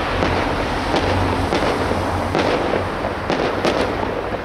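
Aerial fireworks bursting, a rapid run of sharp bangs and crackles about two or three a second.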